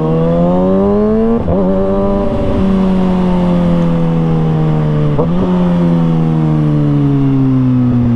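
600cc inline-four sport bike engine accelerating through two quick upshifts about one and a half and two and a half seconds in. The revs then fall slowly as the rider rolls off, with a brief rev blip about five seconds in.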